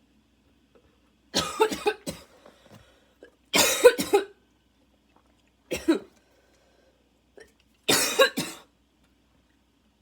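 A woman's coughing fit: four bouts of barking coughs, two or three coughs in each, with faint wheezy breaths between them. Her airways are tight enough that she needs her inhaler.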